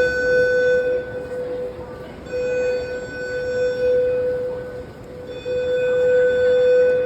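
Fire alarm horns in a shopping mall sounding one steady tone in long pulses, about one every three seconds. This is the building alert signal, sounding while the fire department is called and staff investigate.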